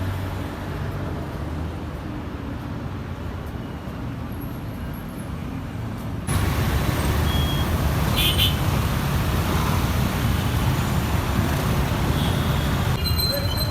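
Road traffic noise: a steady low rumble of vehicle engines that jumps abruptly louder about six seconds in, with a brief high-pitched sound around eight seconds in.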